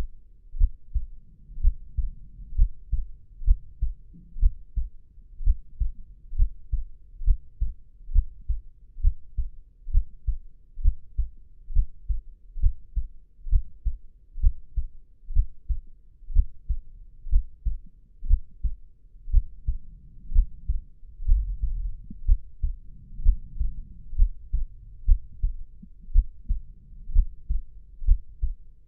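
Heartbeat sound effect: slow, steady, low lub-dub beats, a little under one a second.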